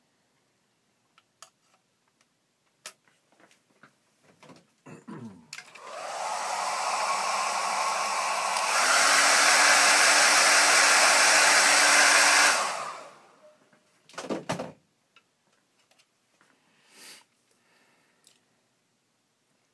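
Hair dryer drying the watercolor paint: it starts, runs steadily, steps up to a louder setting about halfway through, then switches off and winds down. Light clicks and a short knock come before and after it.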